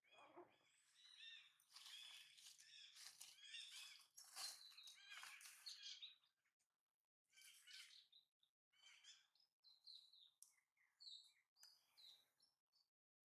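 Faint birdsong: several birds chirping and singing in quick repeated phrases through the first half, then a short lull and scattered single chirps.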